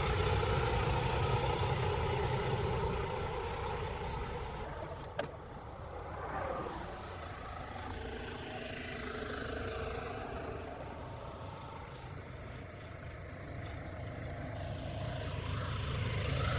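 Vehicle engines running with a steady low rumble that eases off after about five seconds and swells again near the end, with a single sharp click about five seconds in.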